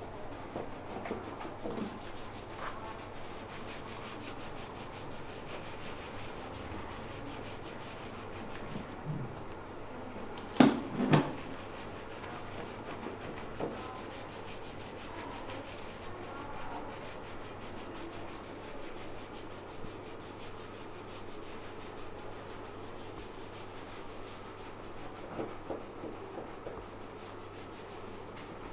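A masseuse's hands rubbing and kneading, a steady soft rubbing over cloth and skin, with two sharp knocks a little over ten seconds in.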